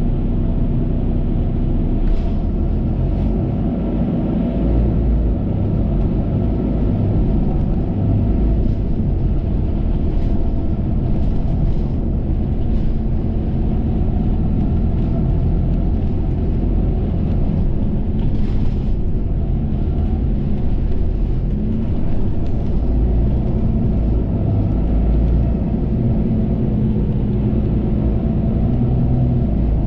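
Cabin noise of a double-decker bus as it pulls away from a stop and drives through city streets: a steady engine hum and rumble, with a few brief hisses.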